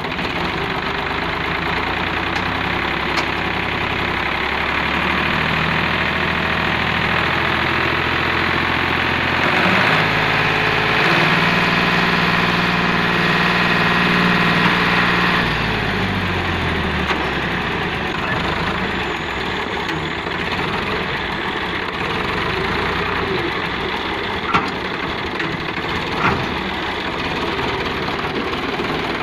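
Powertrac 445 DS tractor's diesel engine running. About ten seconds in it revs up and holds a higher steady speed for some five seconds while it drives the hydraulic tipper that raises the loaded trolley, then drops back to idle. There are a few light knocks near the end.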